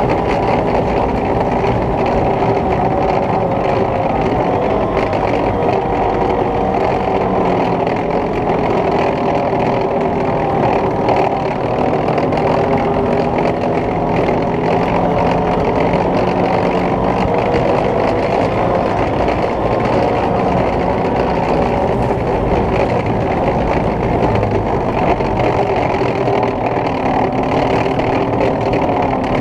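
FV432 armoured personnel carrier under way: its engine running steadily under load, pitch shifting a little, with the rapid rattle of its tracks.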